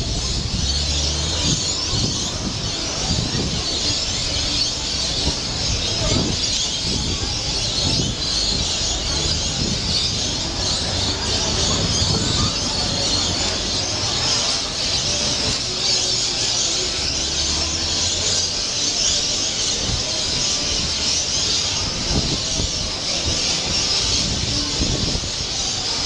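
A large flock of parrots calling together in palm trees, an evening roosting chorus heard as a dense, unbroken high-pitched din. A low rumble comes and goes underneath.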